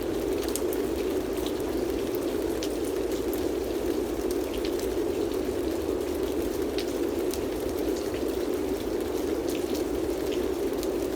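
Steady, rain-like white noise: a dense hiss centred in the low-mids, with a low rumble underneath and scattered light ticks higher up. It is the masking bed of a subliminal audio.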